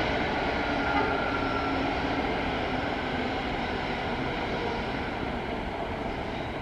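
ED4M electric multiple-unit trains on the rails, a steady rumble of wheels and running gear that slowly fades as the passing train draws away. A few faint whining tones are heard in the first couple of seconds.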